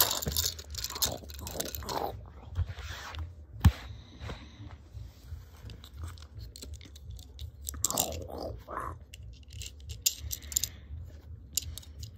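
Plastic LEGO toys being handled and pushed together, irregular scraping and crunching rustles with one sharp click about three and a half seconds in.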